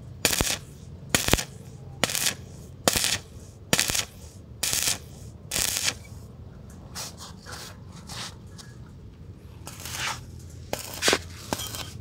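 Rhythmic scraping or rasping strokes, a little under one a second, seven in a row; after a quieter stretch, a few more strokes come near the end.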